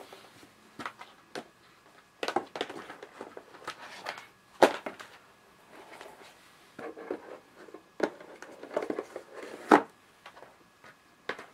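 Someone handling and rummaging through DVD box sets, with scattered rustles and clatter and two sharp knocks, about four and a half and ten seconds in.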